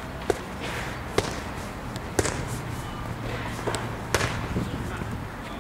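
Boxing gloves smacking focus mitts during pad work: about five sharp, separate smacks at an uneven pace.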